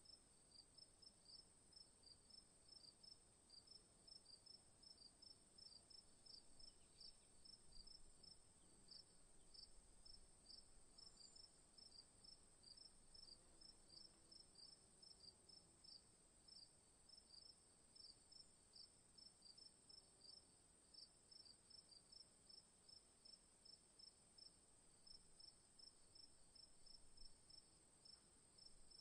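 Faint cricket chirping, a regular chirp about twice a second, over a steady high-pitched whine.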